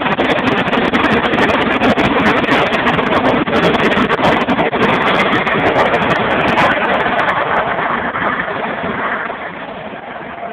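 Harrier jump jet's Rolls-Royce Pegasus turbofan running at high power in flight, a loud, dense jet roar that fades over the last couple of seconds as the aircraft pulls away.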